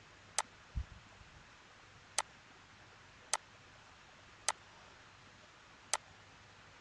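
Computer mouse clicking, five short sharp clicks spaced roughly a second apart, over faint steady hiss, with one soft low thump about a second in.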